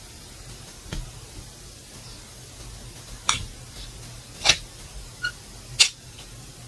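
Slime being worked by hand, giving four short, sharp pops or clicks spread across a few seconds, over a faint steady hum.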